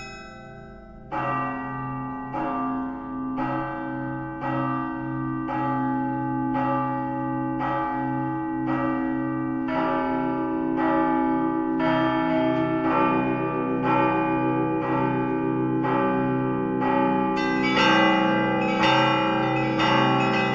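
Russian Orthodox church bells rung by hand in a bell-ringing concert: after a quieter start, the full set of bells comes in about a second in, struck in a steady pattern of about one stroke a second over a deep, sustained low bell. The ringing grows denser and louder near the end.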